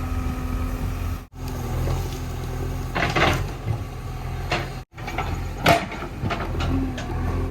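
JCB 3DX backhoe's diesel engine running steadily, with a few sharp wooden knocks as logs are handled, the loudest a little over halfway through.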